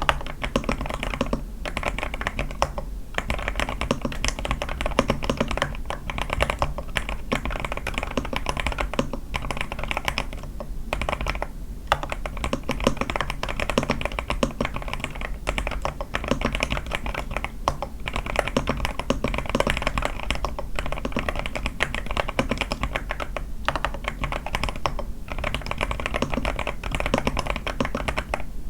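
Continuous fast typing on an A81 mechanical keyboard with lubed Sky switches, a tape mod and lubed stabilizers: a dense run of keystroke clacks, broken by a few short pauses, near 3 s, around 11 s and near 23.5 s.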